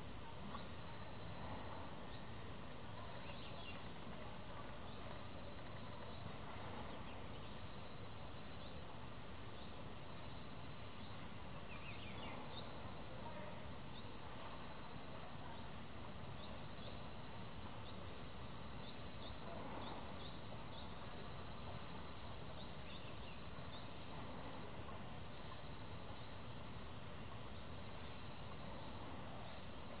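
Tropical forest ambience: a steady insect drone with a short, high, sweeping call repeated about once a second.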